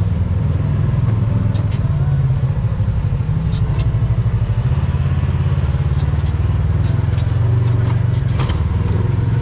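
Polaris RZR side-by-side UTV engine running at a low, steady crawl, heard from onboard, with scattered clicks and knocks over it.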